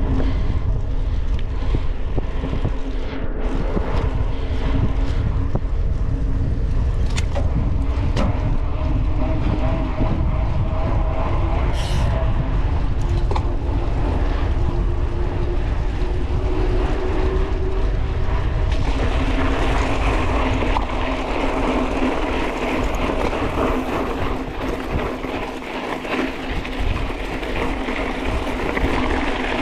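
Wind buffeting the microphone as a mountain bike is ridden along asphalt, with the hum of its tyres on the tarmac rising slightly in pitch. About two-thirds of the way through the sound turns harsher and more hissy.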